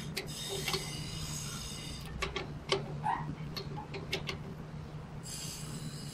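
Socket wrench clicking in short, irregular clicks as a nut is tightened inside the steel vessel's agitator mounting opening, over a steady low hum.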